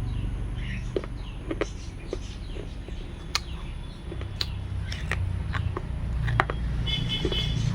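Birds chirping over a low, steady rumble, with scattered sharp clicks throughout and a brief pitched call near the end.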